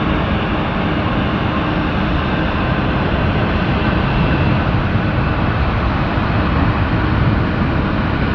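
Jet airliner's engines on landing: a steady roar with faint whining tones on top, swelling slightly in the middle.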